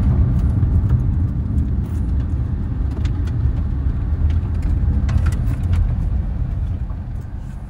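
Car cabin road noise: a steady low rumble of the vehicle driving on a gravel road, with a few faint clicks. It fades near the end as the car slows.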